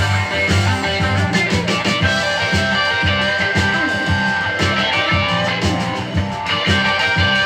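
Rock music with guitar and a steady pulsing bass line, played through loudspeakers driven by a GAS Son of Ampzilla power amplifier and picked up through the air by a microphone.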